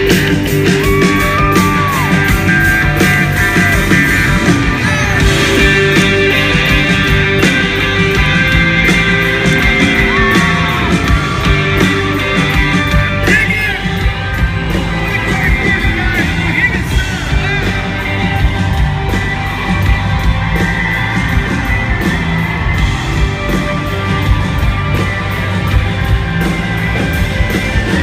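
Live country-rock band playing loud and without a break, with electric guitar, drums and a lead vocal, and the arena crowd yelling along.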